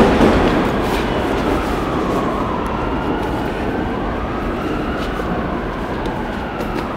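A train rumbling on the tracks, with faint squealing tones that slide up and down over the noise. It is loudest at the start and slowly fades.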